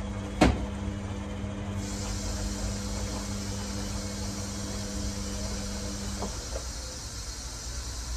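A kitchen tap runs water into a plastic spray bottle, a steady hiss that starts about two seconds in. Just before it there is a single sharp knock, and a low hum stops about six seconds in.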